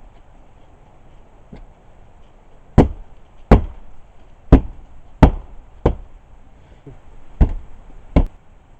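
Seven sharp knocks on plywood, irregularly spaced, as a cut plywood sheathing piece is struck to seat it on the wall framing, with a couple of fainter knocks between.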